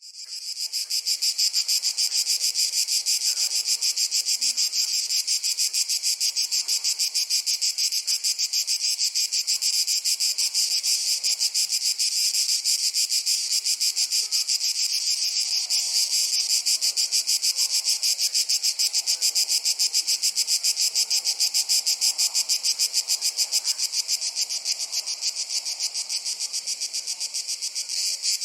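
A summer chorus of insects in a Mediterranean forest, chirring in a fast, even pulse that holds steady throughout. It fades in over the first second.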